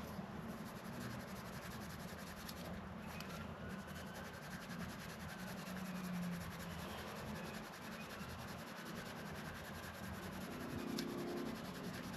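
Steady rubbing of Autosol metal polish into a scratched plastic gear-shifter lens, polishing the scratches out.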